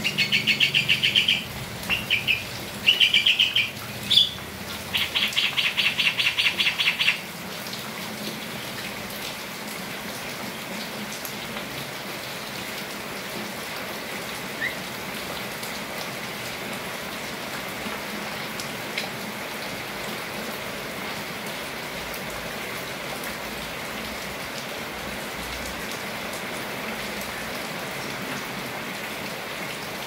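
Javan mynas (jalak kebo) calling in several bursts of harsh, fast-repeated notes over the first seven seconds, the last a long rapid run. After that comes only the steady hiss of rain falling.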